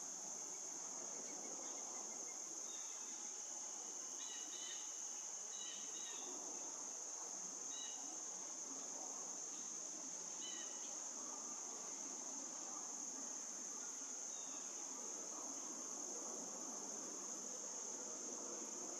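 Steady, high-pitched insect trilling, a continuous chorus like crickets. A few faint short chirps come and go between about three and eleven seconds in.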